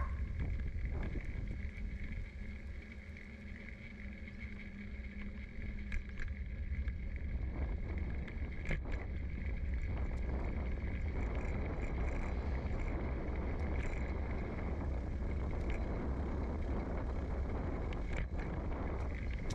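Road noise of a bicycle being ridden on asphalt, heard through a microphone mounted on the bike's frame: a steady low rumble with a hiss of tyres and wind that grows louder about eight seconds in, and a few light clicks.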